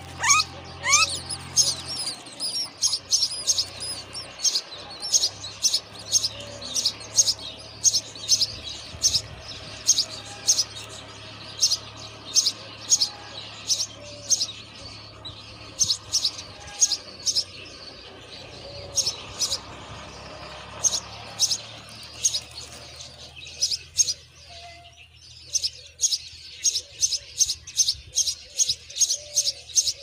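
Common myna nestlings begging: thin, high chirps repeating about twice a second, with a few rising calls in the first second.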